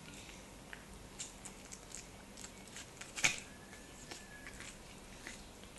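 A cat chewing and biting kernels off a hand-held cob of corn: scattered small crunches and clicks, with one louder crunch about three seconds in.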